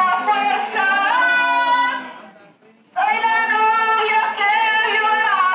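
Women's voices singing unaccompanied in long held notes, breaking off briefly about halfway through and then going on.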